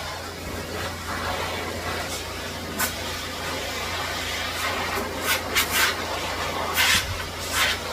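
Handheld pet blow dryer running steadily, blowing air through a dog's coat, with several short, louder hisses in the second half as the airflow and brush strokes pass.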